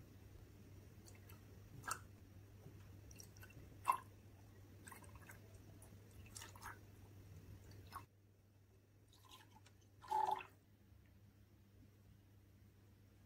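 Red jelly liquid being poured into glass tumblers, with a faint pouring hiss and a few light taps of glass, the loudest about four seconds in. About ten seconds in, a short wet plop as a spoonful of thick custard is dropped into a glass.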